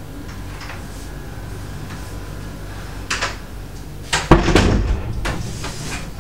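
A wooden bedroom door being opened and pushed shut: a sharp click about three seconds in, then a heavier knock with rustling about a second later, the loudest sound.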